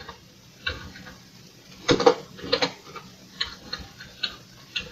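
Keys clicking on a Commodore VIC-20 keyboard as a command is typed: about nine irregularly spaced keystrokes, the loudest about two seconds in.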